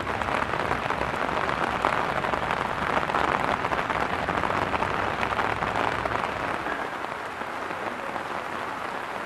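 Steady rain falling, a dense, even patter that softens a little in the last couple of seconds.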